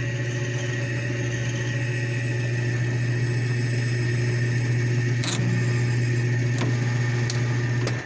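Metal lathe running steadily with a strong low hum and a few steady higher tones. There are a few sharp clicks in the second half, and the machine cuts off suddenly at the end.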